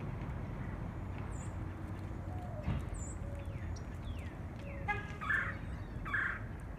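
Birds chirping and calling near a feeder: short high chirps and sliding whistles, then two louder, harsher calls about five and six seconds in, over a steady low rumble.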